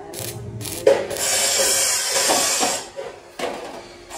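Stick arc welding on steel tubing: a few short crackles as the electrode arc is struck, then from about a second in a steady sizzling hiss of the running arc that stops near three seconds.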